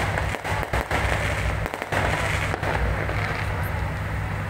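Aerial fireworks bursting overhead in a dense, continuous run of bangs and crackle.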